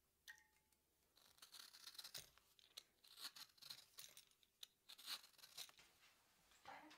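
A hand vegetable peeler scraping strips of zest off an orange: a rapid run of short rasping strokes from about a second in, following a single light clink just after the start. A softer, lower sound comes near the end.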